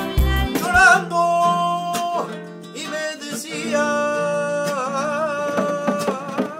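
A man singing long held notes with vibrato to his own acoustic guitar. The first second carries the end of a different song with a heavy bass beat, cut off abruptly.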